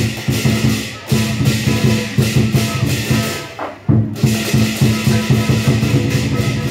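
Live band music with rapid, driving drumming over a steady held tone. The drumming breaks off for a moment about halfway through and then comes back in.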